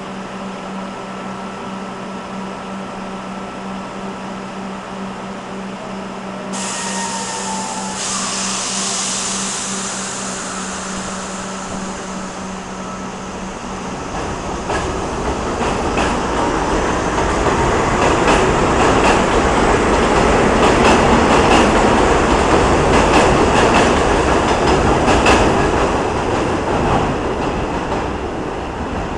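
R44 subway train standing at an elevated platform with a steady low hum, a sudden hiss coming in about six seconds in. About halfway through it pulls away, wheels and motors growing louder into a rumble with quick rail-joint clicks, then easing off as it leaves.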